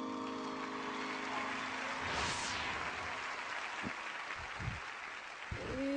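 Studio audience applauding and cheering as a held musical chord fades out in the first second or so, with a brief swell about two seconds in. Near the end a woman's voice starts singing a long, wavering note.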